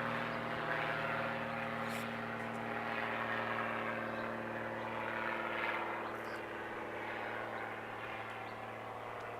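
A steady drone at a constant pitch, like a motor running, with a faint hiss over it.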